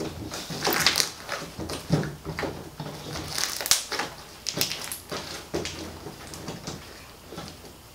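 Sticky glue-and-detergent slime being squeezed, stretched and pressed by hand, giving irregular wet crackles and pops.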